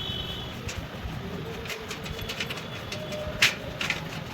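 Scattered sharp clicks and light knocks from handling and cleaning inside the cutting plotter's opened casing, the sharpest about three and a half seconds in, over a faint low cooing in the background.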